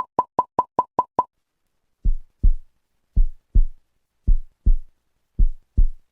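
A run of seven quick electronic beeps, then a heartbeat sound effect: four low double beats, about one a second.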